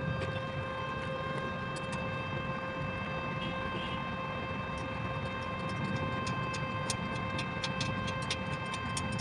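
Electric welding arc: a steady electrical hum with a low crackle, and sharp crackling clicks that come thicker from about halfway through.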